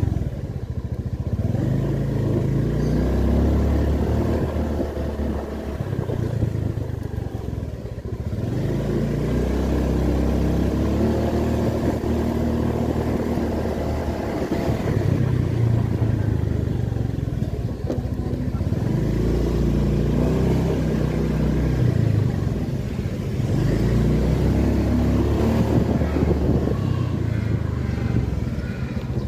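Honda BeAT scooter's small single-cylinder engine running while riding, its note rising and easing off several times with the throttle, over a steady low rumble of wind and road noise.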